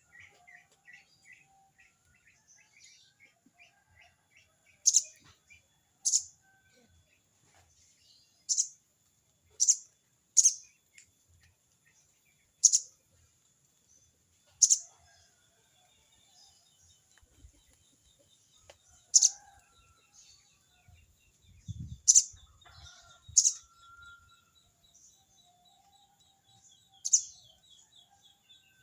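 Sogon bird giving short, sharp, high-pitched 'crecet' calls, about eleven scattered every one to four seconds, over a faint rapid chatter, calling out to a rival.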